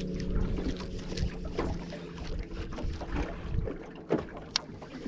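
Water slapping against the hull of a small boat, with scattered knocks and clicks. A low steady hum runs through the first half and fades out.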